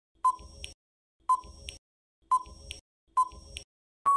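Quiz countdown timer sound effect: four ticks about a second apart, each a sharp click followed by a softer second click. Near the end a steady high beep starts as the time runs out.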